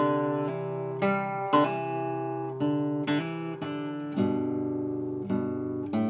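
Acoustic guitar music, fingerpicked single notes and chords at an unhurried pace, beginning suddenly on a ringing chord.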